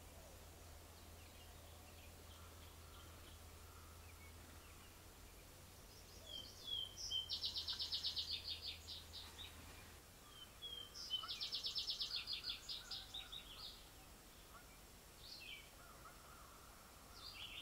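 A small songbird singing twice, a few seconds apart: each song is a few short opening notes followed by a fast, dry trill. Faint steady outdoor background noise underneath.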